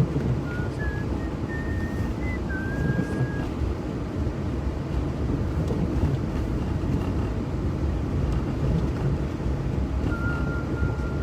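Steady low rumble of a car driving on a snowy road, heard from inside the cabin, with the defroster fan blowing on maximum. A few faint high tones sound in the first three seconds and again near the end.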